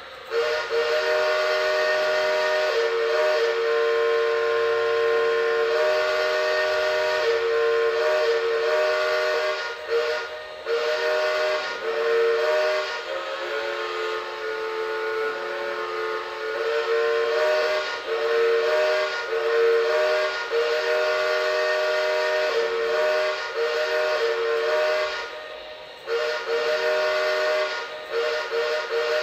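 Multi-chime steam whistle sounding a long, nearly unbroken chord, cut briefly about ten seconds in, again at twelve, and near twenty-six seconds, its pitch sagging slightly for a few seconds in the middle.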